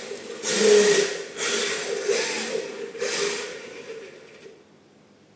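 3D-printed rear-wheel-drive RC drift car running in several short surges of throttle, with a high motor whine and tyres scrubbing on the floor. The sound dies away about four and a half seconds in.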